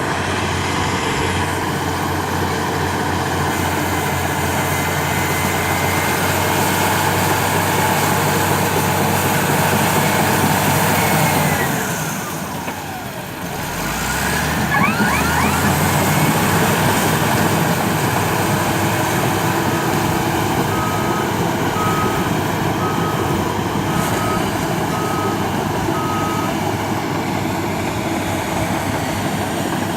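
Caterpillar D6H LGP track bulldozer's diesel engine running steadily; about twelve seconds in it drops in speed and revs back up. Later its reversing alarm beeps, about one beep a second for several seconds.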